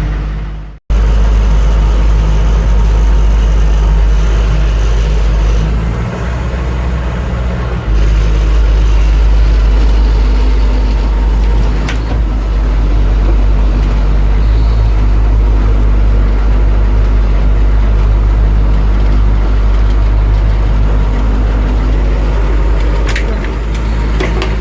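Humvee's diesel engine running steadily, a loud low rumble heard from inside the cab, with a brief cut-out about a second in.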